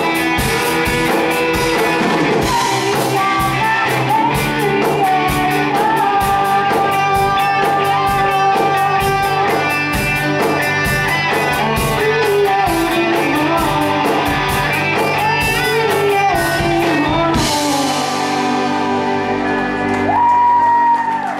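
Live rock band playing with distorted electric guitars, keyboard, bass and drum kit. About seventeen seconds in, the drums stop on a final cymbal crash, and the guitars and keyboard hold ringing notes as the song ends.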